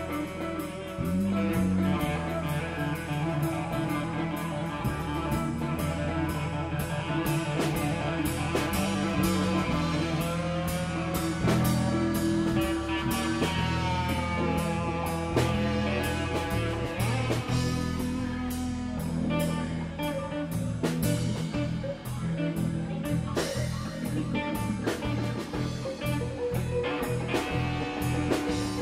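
Live rock band playing: guitar over a drum kit, with bent guitar notes partway through.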